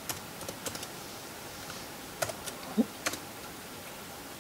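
Typing on a Lenovo C330 Chromebook's laptop keyboard: soft, irregular key clicks, a few in the first second and a few more about two to three seconds in.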